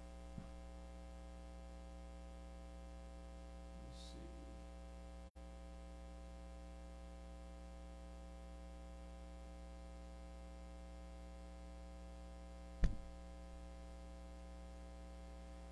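Steady electrical mains hum with evenly spaced overtones, and a single short knock about thirteen seconds in.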